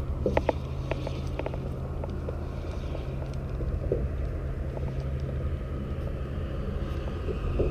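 Steady low drone of road traffic crossing the highway bridge, with faint tyre whine, and a few light clicks in the first second.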